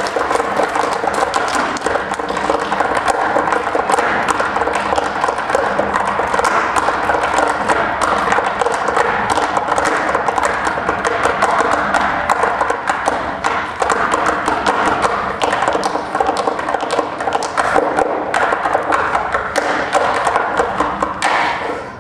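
Tap shoes striking the stage floor in fast, dense rhythmic runs of taps and heavier stamps, dropping off just before the end.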